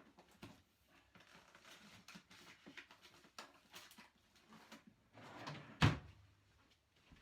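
Household cleaning gear being handled on a floor: soft rustling and sliding with scattered light clicks, then one loud knock about six seconds in.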